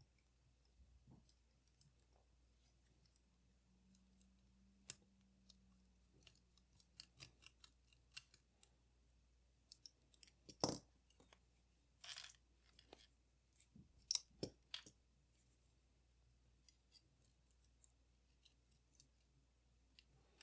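Scattered small clicks and taps of tools and small metal camera parts being handled during a camera teardown, with a few sharper clicks about halfway through; otherwise very quiet.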